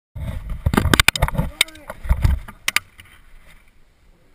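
A quick run of sharp clicks and knocks over a low rumble from wind and handling on the microphone, with a brief vocal sound; the knocks thin out after about three seconds.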